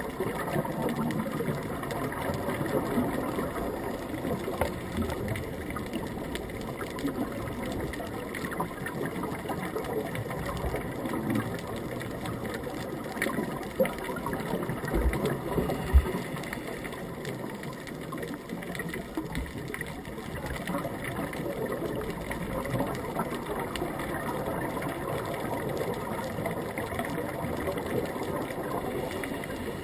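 Steady mechanical whirring heard underwater through a camera housing, with two dull low knocks about fifteen and sixteen seconds in.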